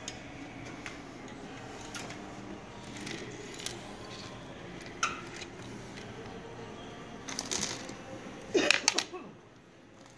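Scattered light clicks and knocks of a dipped wax candle and its metal wire hook being handled and set on a metal table, over steady shop background noise. Near the end comes a quick run of several louder, sharper clicks.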